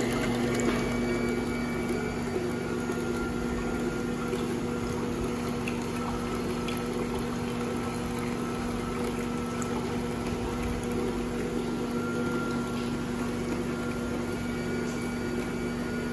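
Horizontal slow (masticating) juicer running steadily, its motor giving a low, even hum as the auger crushes pomegranate arils, with a few faint crackles. Juice trickles from the spout into the cup.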